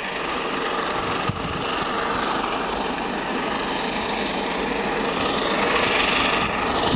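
LNER A1 class 4-6-2 steam locomotive 60163 Tornado approaching at speed with its train: a steady rushing noise that grows louder toward the end. A single sharp click about a second in.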